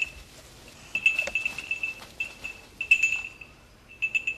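Small bell on a hunting hound's collar tinkling as the dog moves, in short irregular clusters of one high ringing note.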